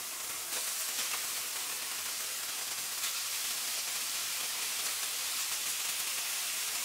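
Strips of homemade bacon-style meat sizzling gently in a hot, dry non-stick pan, frying in their own melting fat with no oil added: a steady soft hiss.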